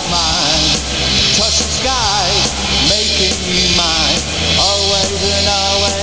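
Rock band recording playing: a dense, loud mix with a steady beat and a lead melody that bends and wavers in pitch over it.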